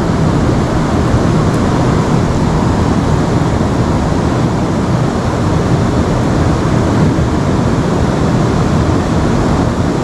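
River water rushing steadily, a loud even noise with no break.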